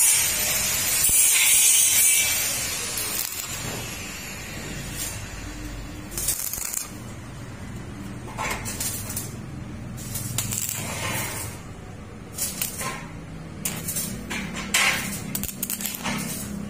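Stick (arc) welding on steel square tubing: the electrode arc crackling and sizzling steadily for the first few seconds, then in shorter, broken spells of crackle as the arc is struck and run again.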